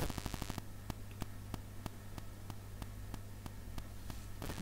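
Soldering iron working a joint on a circuit board. There is a short crackle at the start and another near the end, over a steady electrical hum with faint ticks about three times a second.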